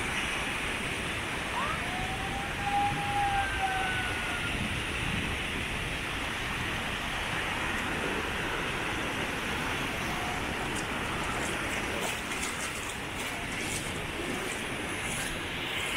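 Steady rushing wash of beach surf. A few brief whistling tones glide and hold about two to four seconds in, and faint high ticking comes in over the last few seconds.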